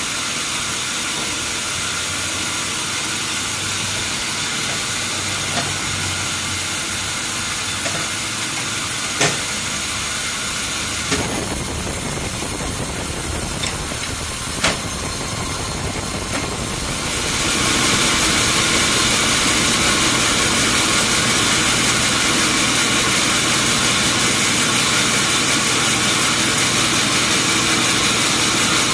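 Sawmill machinery running with a steady mechanical hiss and a few sharp knocks, turning louder and brighter about seventeen seconds in.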